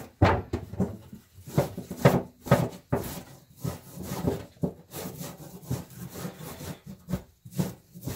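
Burdock root being scrubbed with a scrubber: repeated irregular rasping, scratching strokes.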